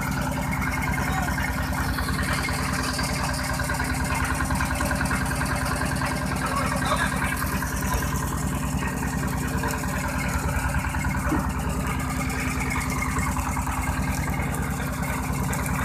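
Fishing boat's engine running steadily with a fast, even throb that does not change.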